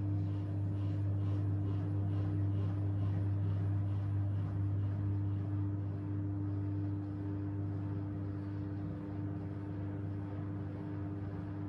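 AEG washing machine running its interim spin on the cotton programme: a steady hum from the motor and drain pump, with a faint rhythmic swish in the first half.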